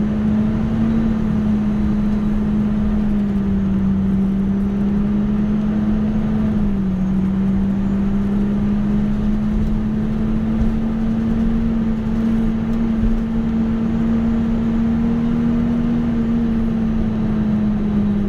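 KL-UA272KAM city bus running, heard from inside the cabin: a steady engine drone holding close to one pitch, dipping slightly about seven seconds in and easing down again near the end.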